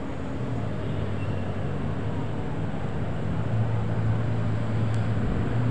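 Steady low motor hum over a rushing background noise, growing a little louder about three and a half seconds in.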